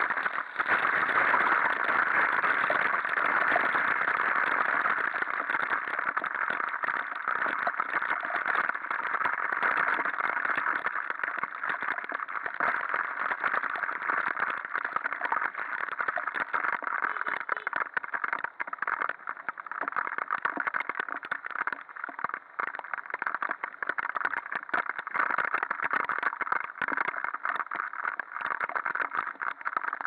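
Heavy rain spattering on a scooter-mounted camera while riding: a dense, steady crackle of drops, with wind and the Suzuki Address 110 scooter's engine running underneath. It eases off a little in the second half.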